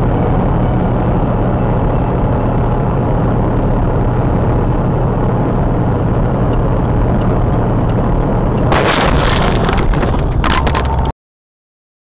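Steady low rumble of a semi truck cab at highway speed. About nine seconds in, a sudden two-second barrage of mud and debris strikes the cab and windshield, then the sound cuts off.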